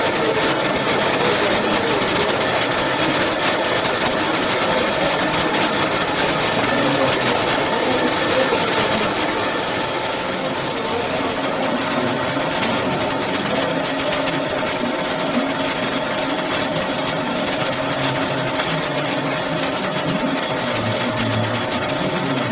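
Grinding machine running and grinding metal mandrels: a steady, dense grinding hiss over a constant machine hum, easing slightly in loudness about ten seconds in.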